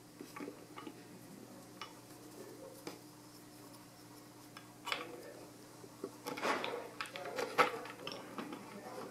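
Small metal screws and a metal upright bar clinking and scraping against a plywood chair shell as the screws are started by hand. Scattered light clicks at first, then a busier spell of handling and rubbing a little past the middle.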